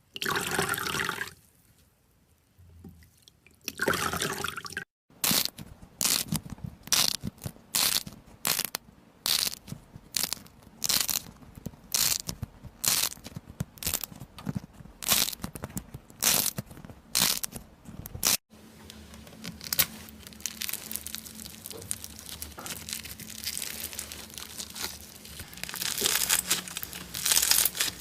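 Slime being played with by hand: a run of crisp, crunchy pokes and presses nearly two a second, then after a sudden change a steady crackling and crinkling as it is squeezed and stretched, louder near the end.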